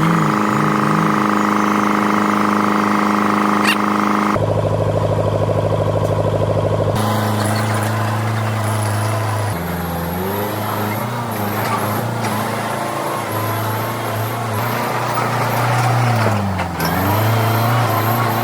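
Heavy construction machinery engines running, with the engine note changing abruptly a few times and dipping then rising again near the end.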